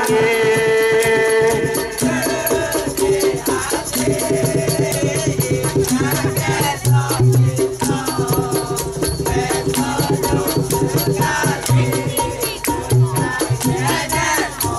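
A live Malay folk ensemble of the dikir type: singing over shakers (maracas) rattling in a fast, steady rhythm, with a low drum beat underneath.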